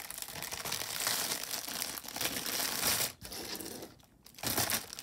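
Hands rustling and crinkling while picking up and sliding clip-on earrings across a textured mat, with a brief break about three seconds in and another around four seconds in.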